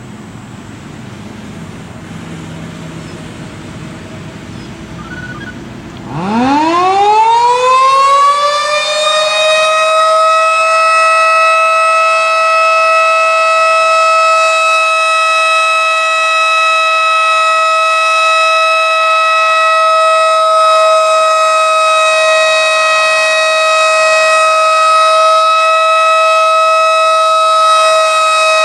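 Federal Signal 2001-130 electromechanical siren starting up about six seconds in: its pitch climbs quickly for a few seconds, then holds one steady, even tone, the Alert signal, with a non-rotating head.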